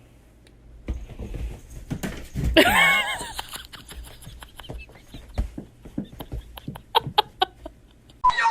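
An animal's wavering call lasting under a second, about three seconds in, among scattered clicks and light taps.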